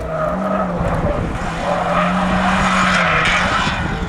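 Hill-climb race car passing at speed, its engine held at steady high revs after a brief step up in pitch just after the start. The car grows louder to a peak around two to three seconds in, then fades as it goes by.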